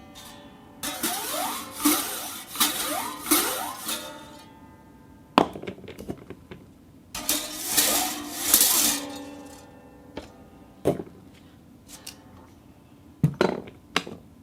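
A small ball rolling and swirling around inside a cup, in two long passages with ringing tones that slide up and down as it circles. Between and after them, several sharp single clinks of ball against cup, each with a short ring.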